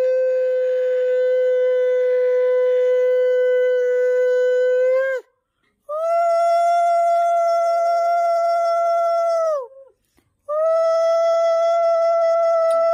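Conch shell (shankha) blown in three long, steady blasts, each dropping in pitch as the breath gives out; the second and third are a little higher than the first. Ritual conch blowing during a Hindu puja.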